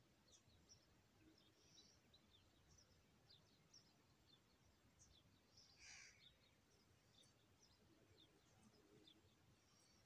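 Faint, high, thin cheeps of nestlings begging in the nest, scattered throughout, with one slightly louder call about six seconds in.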